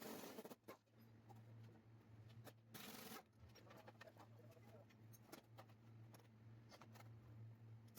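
Near silence: a faint steady low hum with a few brief rustles, one right at the start and another about three seconds in, and scattered light clicks.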